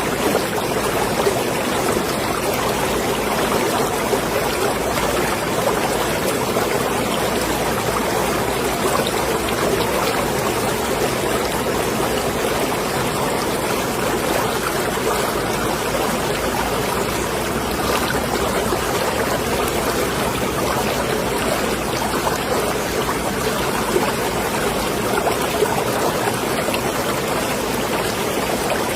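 Marina water lapping and washing, a steady rush with a few faint clicks.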